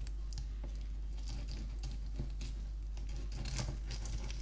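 Filleting knife cutting along a garfish's backbone on a wooden chopping board: faint, irregular small clicks and scrapes as the blade runs over the bones, over a steady low hum.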